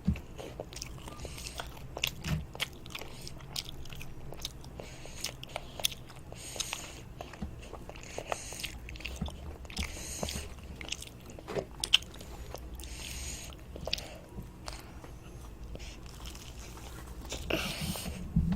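A child biting into and chewing toast, with many short crunching bites and wet chewing sounds throughout.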